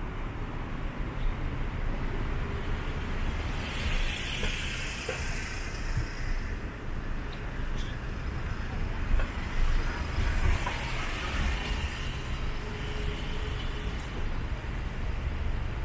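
City street ambience: a steady traffic rumble, swelling twice as vehicles pass, about four seconds in and again about ten seconds in.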